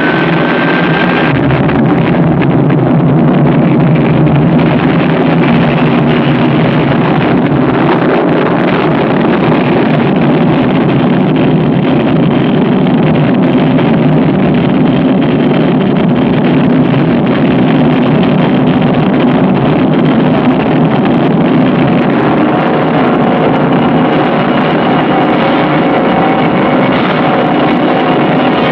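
Rocket engine sound effect from an old film soundtrack: a loud, steady rushing roar. Music begins to come in under it in the last few seconds.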